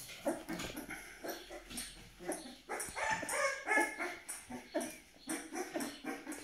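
A 12-day-old Aksaray Malaklı puppy whimpering in short, high cries while suckling from a baby bottle, with quick sucking clicks between the cries. The cries bunch together about halfway through.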